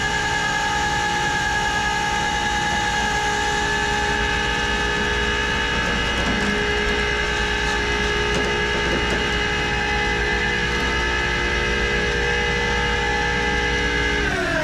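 Tow winch motor running steadily with a high whine as it pulls the non-starting car up the loading ramps, then winding down in pitch as it stops near the end.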